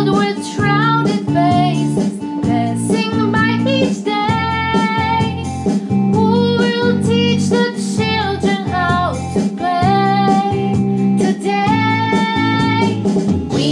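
Music: a woman singing a song over guitar accompaniment.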